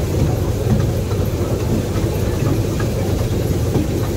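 Amusement-park toy train running, heard on board as a steady low rumble.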